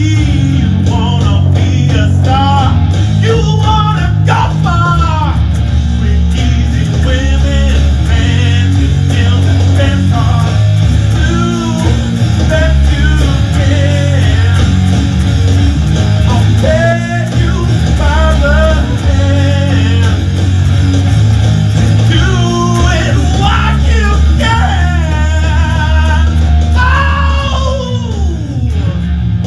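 Rock band jamming loudly: a Stratocaster-style electric guitar played over a heavy bass low end, with a melodic line that slides up and down in pitch above it.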